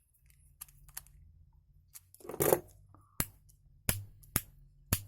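Plastic handling of a small inline cord switch, then four sharp clicks about half a second apart in the second half as the switch is toggled on and off.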